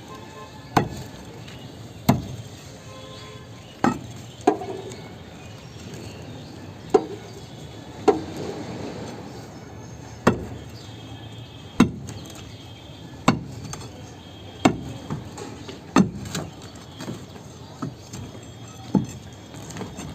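Heavy hammer blows on a concrete slab, about a dozen sharp strikes spaced one to three seconds apart, each with a short ring.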